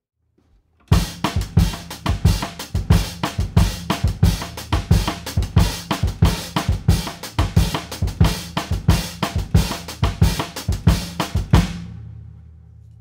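A 3D-printed snare drum played with drumsticks: after about a second of quiet, a fast, continuous run of strokes for about ten seconds, then the drum rings on and fades out near the end.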